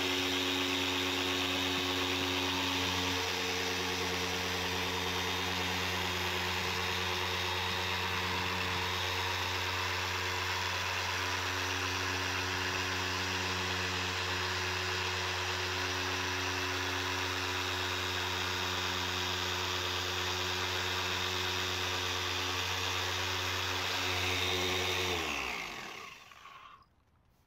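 Small cordless polisher running steadily with a foam pad on a plastic headlight lens, its motor holding one even pitch. Near the end the motor winds down, falling in pitch, and stops.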